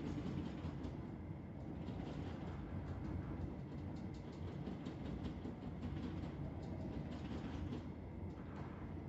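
Tram running along street track, heard from inside the car: a steady low rumble of wheels on rails with light, irregular clicking.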